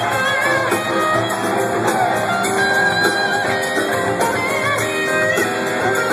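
A rock band playing live, with an electric guitar lead line of gliding, bending notes over the full band.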